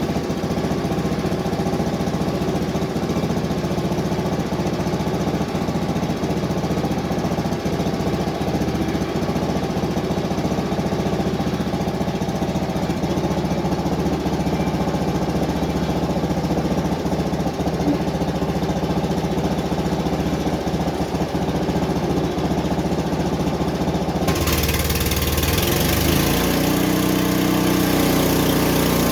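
The small gasoline engine of a Frontier OS23 portable band sawmill, about 7 horsepower, running steadily. About 24 seconds in, the sound changes abruptly: a hiss comes in and the engine's pitch shifts.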